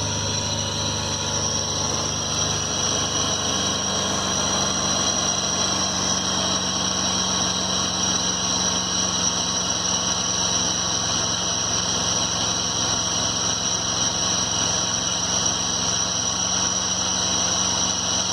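2011 Ford F-150 engine running in gear, with a steady high-pitched whine over the low engine hum. This is the strange noise the owner traced to a corroded vacuum pump.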